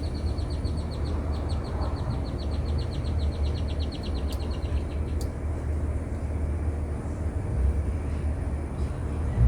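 Steady low outdoor rumble, with a rapid high chirping trill of about eight pulses a second that stops about five seconds in. Two faint sharp clicks come around the time the chirping stops.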